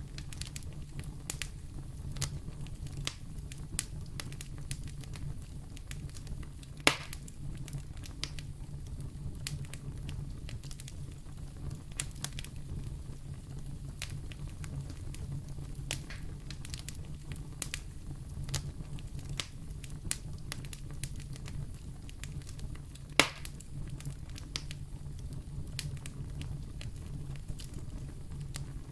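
Wood fire burning in a fireplace: a steady low rumble of the flames with irregular crackles and snaps, two louder pops at about 7 and 23 seconds in.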